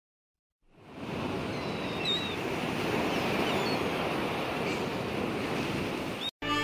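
Ocean surf: a steady rush of waves that fades in about half a second in and cuts off abruptly just before the end, with a few faint high chirps over it.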